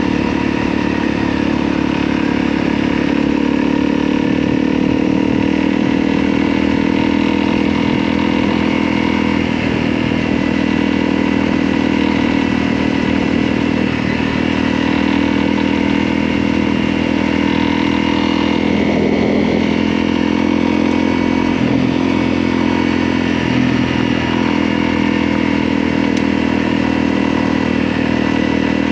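Motorcycle engine running steadily, its pitch drifting slightly up and down.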